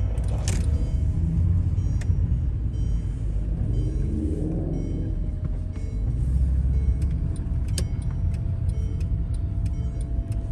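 Low, steady rumble of a car heard from inside its cabin as it rolls slowly along a wet road, with a few faint ticks.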